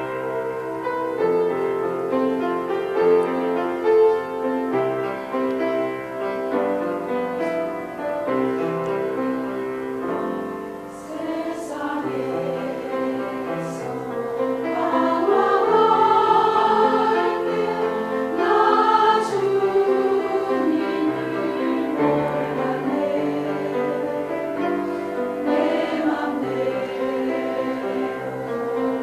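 A choir singing a Christian praise song in sustained chords, growing louder about halfway through.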